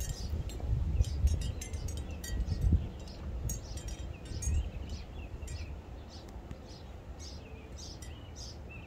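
Small birds chirping in the background: many quick, high, short calls, thickest in the first few seconds and thinning out later, over a low rumble.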